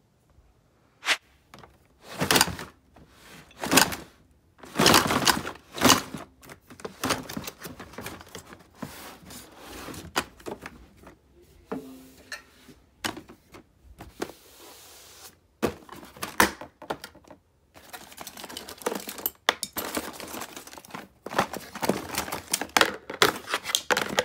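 Boxes and a plastic storage drawer being handled: a run of irregular knocks and thuds, the loudest in the first few seconds, with scraping and rustling of cardboard between them.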